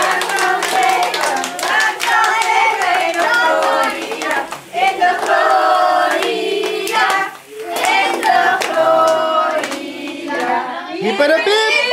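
A group of people singing together while clapping their hands along in a steady beat.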